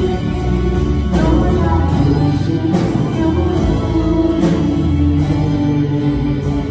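Live worship music: acoustic guitar strummed in a slow, even rhythm under a flute, with a man and a woman singing into microphones.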